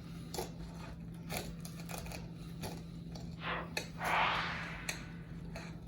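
A sharp knife cutting through an overstuffed sandwich: scattered small crunches and scrapes, with a longer rasping stroke around the fourth second.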